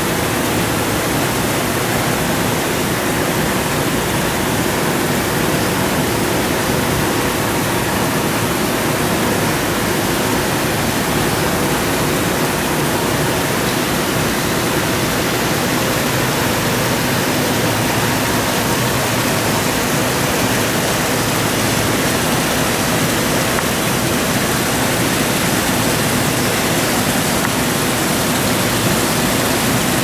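Steady rushing of falling water, unbroken throughout, with a faint low hum beneath it.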